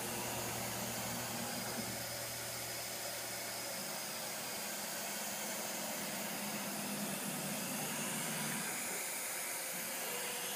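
MultiCam 3000 Series CNC router gantry jogging along the Y axis on its servo drives, a quiet steady hiss under a low hum that shifts pitch and drops out as the jog speed changes.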